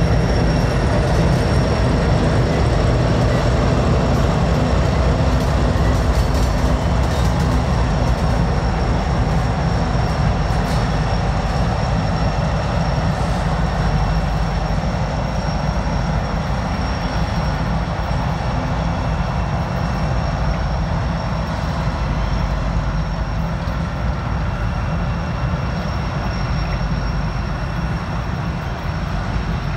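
Freight train rolling past on the rails: a steady, heavy rumble of cars over the track that eases slightly toward the end, with a thin steady high tone above it.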